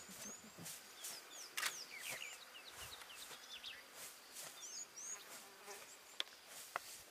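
Faint bush ambience: insects buzzing, with many short high chirps scattered through it and a couple of sharp clicks.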